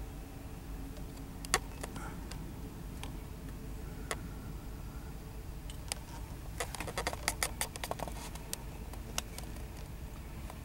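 Low, steady rumble of CSX diesel freight locomotives, with scattered sharp metallic clicks and ticks and a quick run of them about seven seconds in.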